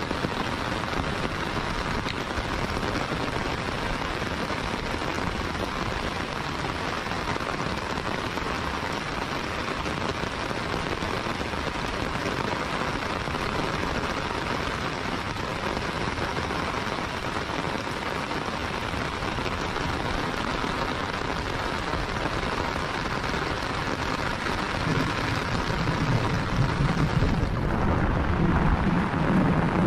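Heavy rain falling steadily, a dense even hiss. In the last few seconds a low rumble swells up beneath it.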